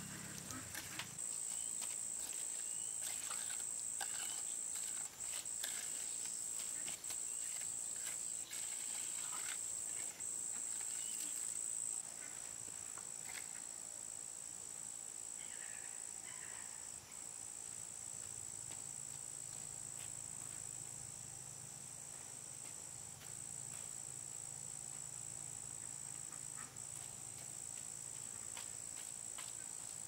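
Steady high-pitched chorus of insects, with scattered scrapes and taps of a hand trowel working wet concrete during the first dozen seconds.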